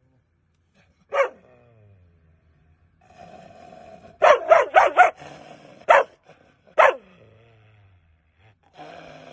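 A caged tan dog barking aggressively: one bark about a second in, a quick run of four barks around the middle, then two more single barks about a second apart.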